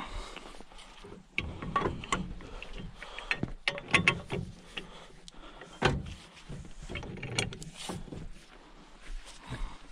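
Pipe wrench working a nut on a hydraulic cylinder's chrome piston rod: irregular metal clicks, clanks and scraping as the jaws bite and are reset, with two louder clanks about four and six seconds in.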